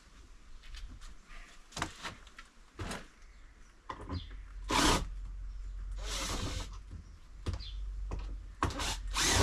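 Scattered clicks and knocks, then a few short rasping scrapes of hard plastic parts being handled and worked on a storage box's lid hinge.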